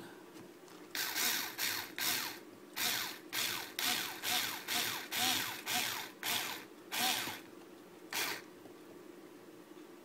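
Cordless electric screwdriver with a Torx 10 bit driving a small screw in short pulses: about a dozen brief whirring bursts, roughly two a second, then one last burst a little later.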